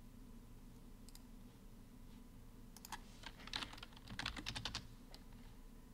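Faint typing on a computer keyboard: one click about a second in, then a quick run of keystrokes from about three to five seconds in.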